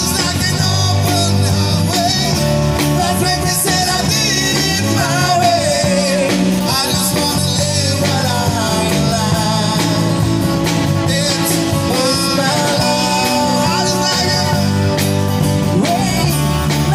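Live band playing a song: amplified singing over acoustic guitars and a drum kit.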